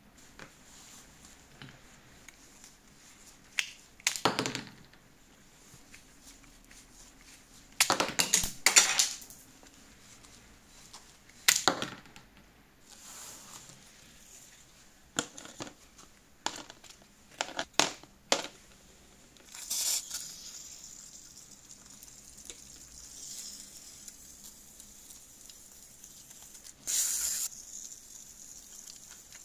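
Hard plastic toy wheel hubs and rubber tyres clattering as they are handled and set down in a plastic tub, a few sharp clatters between quiet stretches. Near the end, a short hiss of foaming cleaner sprayed from an aerosol can through a straw nozzle.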